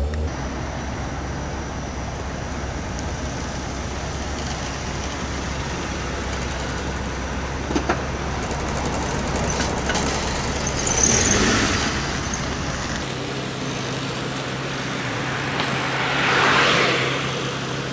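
A car engine running at low speed, with street traffic noise. The sound swells twice, about 11 and 17 seconds in, and the steady low hum stops abruptly about 13 seconds in.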